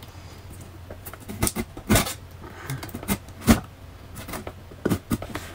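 A cardboard box being handled and opened by hand: scattered knocks, taps and rustles, the sharpest about three and a half seconds in.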